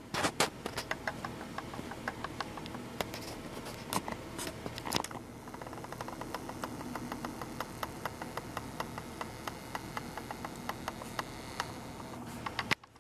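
Canon PowerShot S100 compact camera's zoom lens mechanism rattling, picked up by the camera's own microphone: a rapid run of small clicks, a few louder ones near the start, turning into dense, even ticking that cuts off suddenly near the end. This is an abnormal rattle, a fault that developed in the camera after purchase.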